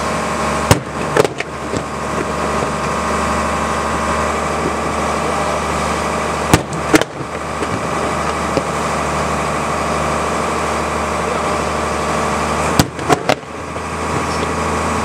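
A boat's engine runs steadily, broken by sharp bangs from sea starmine fireworks dropped into the water and going off close by. There are two bangs about a second in, two more near the middle and three in quick succession near the end.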